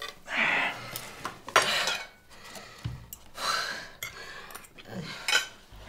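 Cutlery clinking and scraping on plates during a meal, in several separate short strokes with quiet gaps between them.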